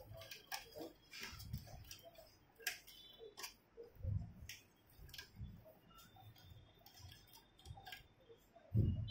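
Irregular small clicks and taps of plastic and metal parts as wiring and connectors are handled inside a partly disassembled Canon LBP2900B laser printer, with a few dull knocks, the loudest near the end.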